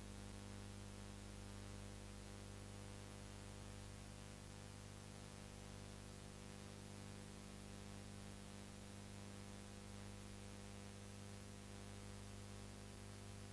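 Steady electrical hum with an even hiss and nothing else: the empty soundtrack of a silent film.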